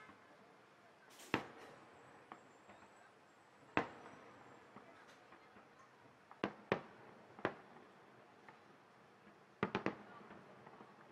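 Aerial firework shells bursting in sharp, separate bangs, each with a short tail. The bangs come about a second in, near four seconds, as a pair around six and a half seconds, once more at seven and a half, and as a quick cluster of three near the end.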